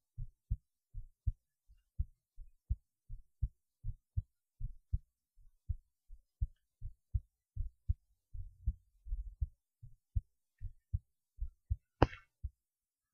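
A person's heartbeat: steady low thumps coming in lub-dub pairs, a little over one beat a second. About eight seconds in there is a brief low rumble, and near the end a single sharp knock, the loudest sound.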